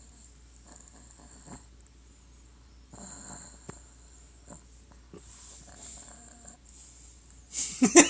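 Pug–pit bull mix dog snoring in her sleep: several soft, rasping snoring breaths a couple of seconds apart. A sudden loud burst of noise cuts in near the end.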